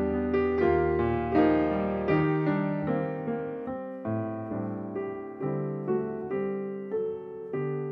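Background piano music: a slow, gentle melody of single struck notes over low bass notes, each note dying away.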